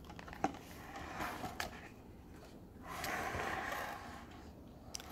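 A paper page of a picture book being turned: a few light ticks, then a soft paper rustle about three seconds in.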